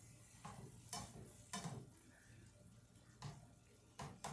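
A utensil stirring ground beef browning in a skillet: about five short, separate scrapes and taps against the pan, quiet overall.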